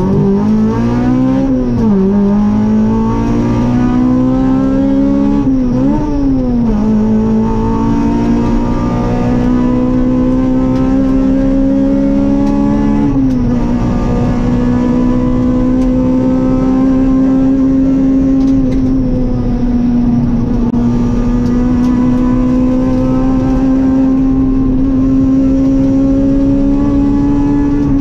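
Rally car engine heard from inside the cockpit, running hard along the stage: the revs climb at first, dip and recover around two and six seconds in, drop a little about thirteen seconds in, then hold nearly steady.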